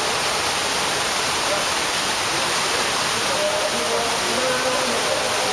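Fountain water falling and splashing into a pool, a steady rushing hiss. Faint voices sound under it about three to four seconds in.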